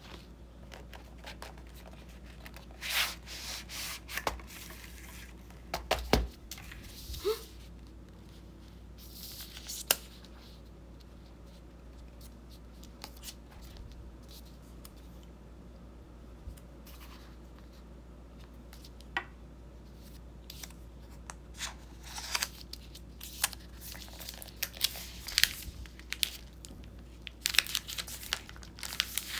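Packaging being unwrapped by hand: scattered paper and plastic rustling and tearing with a few light knocks, quiet through the middle stretch and busier near the end.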